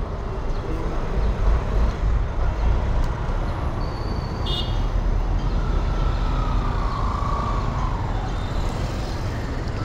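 Street traffic noise with a steady heavy low rumble. A brief high-pitched tone sounds about four and a half seconds in, and a faint falling tone passes a little later.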